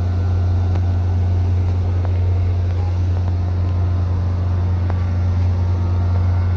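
Steady low drone of an idling diesel locomotive engine, unchanging throughout.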